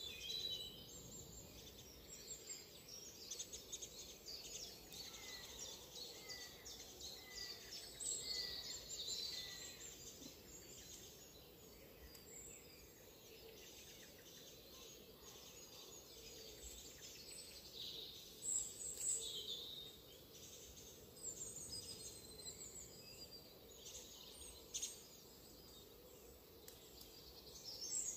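Faint outdoor bird calls over a steady background hiss: a run of short chirps about once a second in the first third, and higher calls scattered through, strongest a little past the middle.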